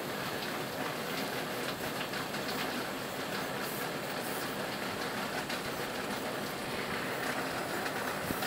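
Model train running on the layout's track: a steady rattle of wheels over rail with quick clicking throughout.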